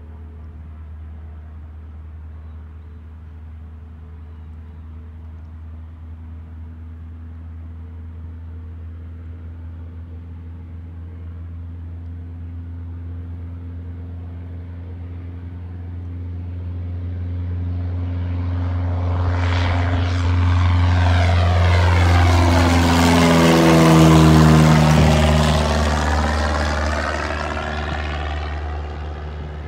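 A 1974 Cessna 172M's four-cylinder Lycoming engine and propeller at full takeoff power. It grows steadily louder for about twenty seconds as the plane rolls and lifts off, drops in pitch as it passes by a little past twenty seconds in, and then fades as it climbs away.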